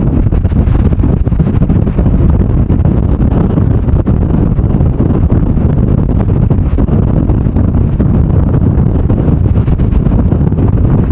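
Storm-force wind of about 100 km/h buffeting the camera microphone: a loud, steady, deep rumbling roar that flutters constantly.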